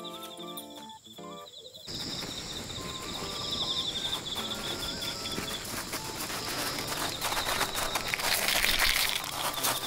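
Footsteps crunching on gravel, louder toward the end, over insects chirping steadily. A short tune plays in the first two seconds and soft music carries on underneath.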